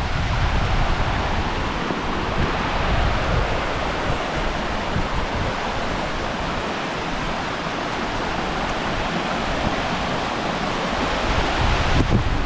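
Mountain stream cascading down a steep, rocky channel: a steady rush of water. Wind buffets the microphone at the start and again near the end.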